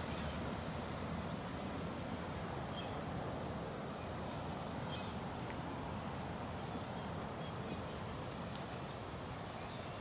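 Steady outdoor background rush with a few faint, short, high bird-like chirps over it.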